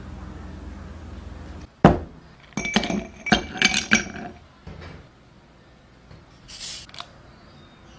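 Tableware clinking: a sharp knock, then a quick run of ringing clinks, as of glass or ceramic dishes knocked together. A steady low rumble stops just before the knock.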